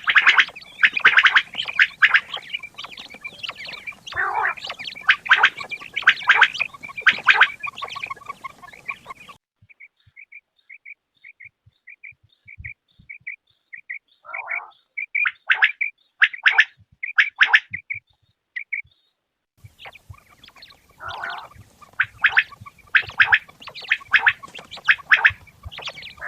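Quails calling, rapid repeated bursts of high calls that break off suddenly about a third of the way in. A run of short, even notes follows at about two a second, then louder calls resume in bursts.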